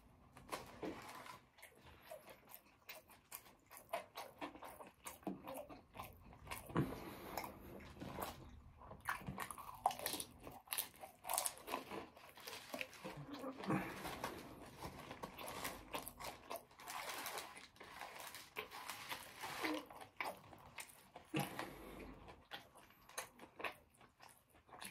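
Close-up chewing of a mouthful of meatball marinara sub filled with Cheetos and potato chips: many short, irregular crunches as the chips break between the teeth.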